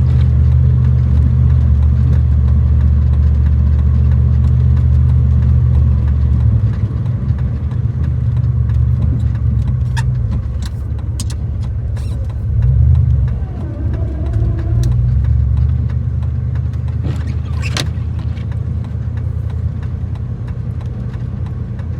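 Gas three-quarter-ton pickup truck's engine running under load while plowing snow: a steady low drone that drops about six seconds in and swells briefly around thirteen seconds. A few sharp clicks or knocks sound near the middle and again a few seconds later.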